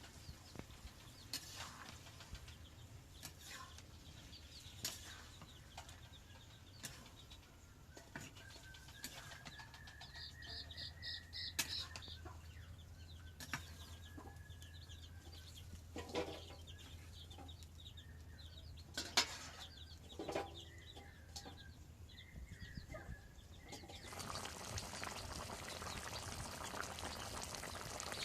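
Chickens clucking now and then, with scattered sharp knocks and clicks. Near the end a steady rushing hiss starts and carries on.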